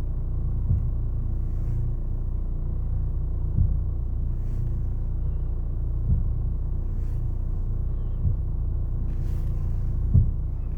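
Third-generation Ford Focus with a dull knock repeating about every two to three seconds over a steady low rumble; a knock the owner cannot identify.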